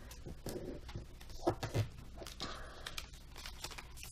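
Origami paper rustling as fingers press and run along a fold to crease it, with light scratchy strokes and a few soft knocks about a second and a half in.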